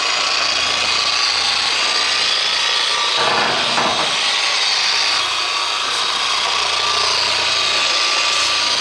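Corded polisher with a wool buffing pad running steadily at its lowest speed setting, the pad rubbing polish into a boat's fiberglass gel coat.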